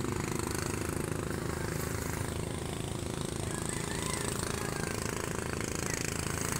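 Small engine of a motorized outrigger boat running steadily at an even pitch, with a dense low hum.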